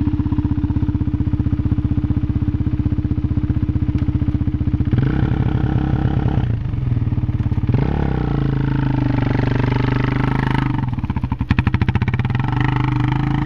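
Quad bike engine idling, revved up for a second or so about five seconds in, then revved again for about three seconds from about eight seconds in before dropping back toward idle.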